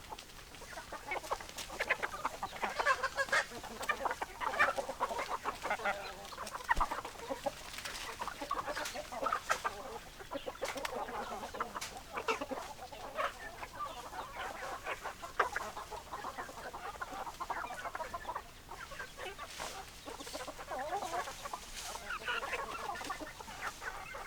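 A flock of hens clucking, with many short calls overlapping one another without a break.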